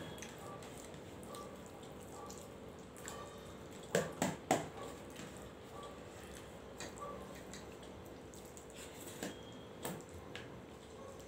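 Eating by hand from steel plates: fingers mixing and scooping rice and curry, with wet, squishy eating sounds. A cluster of sharp clinks comes about four seconds in, and a couple of softer ones near the end, over a faint steady hum.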